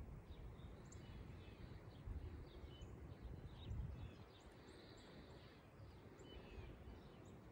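Faint outdoor ambience of small birds chirping and calling, over a low rumble that eases after about four seconds.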